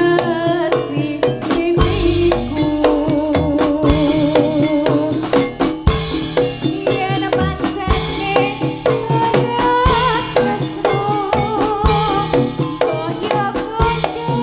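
Live jaranan gamelan music, amplified through a sound system: quick, dense drum and percussion strokes under a wavering melody line.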